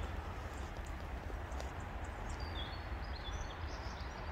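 Steady woodland background noise with a low rumble, and a few short, high bird calls about two and a half to three and a half seconds in.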